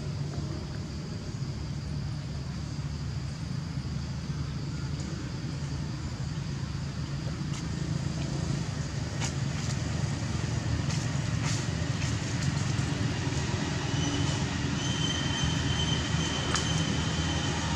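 Steady low rumble of an engine running, growing a little louder about halfway through. There are a few faint clicks, and a thin high steady tone near the end.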